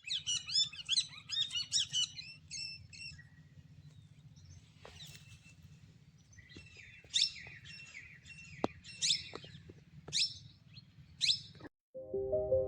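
Small birds chirping: a quick run of high chirps at first, then single sharp calls that sweep downward about once a second. The birdsong cuts off suddenly near the end, and soft music begins.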